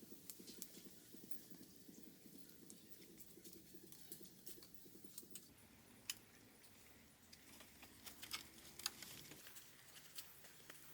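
Faint, scattered clicks and light taps, with a few sharper ones around the middle and near the end.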